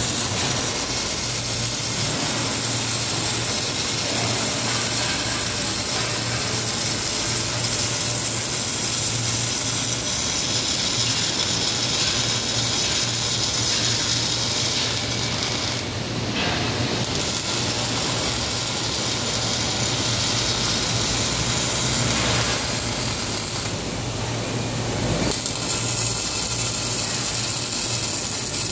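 Robotic MIG welding arc from a Kemppi Kemparc welding system on a Fanuc robot arm, crackling and sputtering steadily as it lays a bead and throws spatter, over a steady low hum. The crackle dips briefly twice, around the middle and about two-thirds through.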